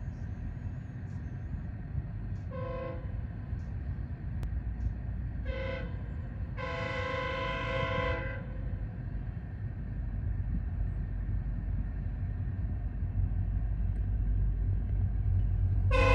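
Sounder commuter train's MP40PH-3C diesel locomotive sounding its air horn, several notes at once. There are two short blasts a few seconds apart, then a longer blast, then another long blast starting near the end, over a low rumble that grows steadily louder as the train approaches.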